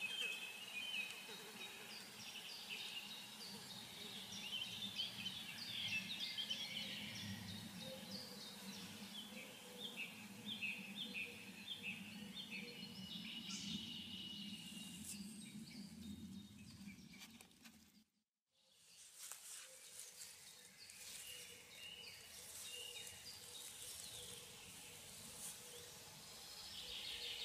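Wild songbirds singing and calling: many short high chirps and a run of evenly repeated notes, over a faint low background rumble. The sound cuts out completely for a moment about two-thirds of the way through, then the birds carry on.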